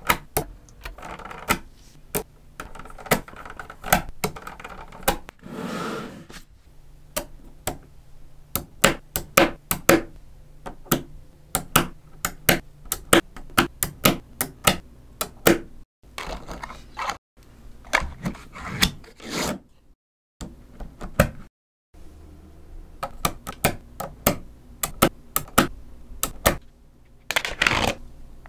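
Small magnetic balls clicking and snapping into place as sheets of them are pressed and laid onto a model built of the balls: many sharp, irregular clicks, with a short rattling scrape near the end as a sheet slides on.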